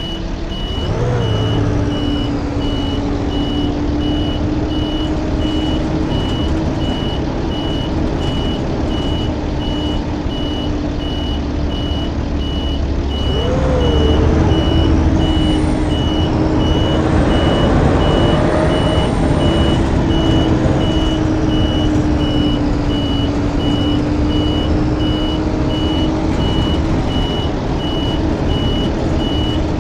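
Blue Bird school bus running under way: a steady engine drone with a wavering whine that swells and rises in pitch about halfway through as it pulls harder, then eases off. A thin high-pitched tone holds throughout.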